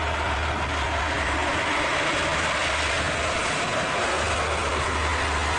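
Lockheed C-130 Hercules's four turboprop engines and propellers running at high power on the runway, a steady deep drone under a broad, even rushing noise.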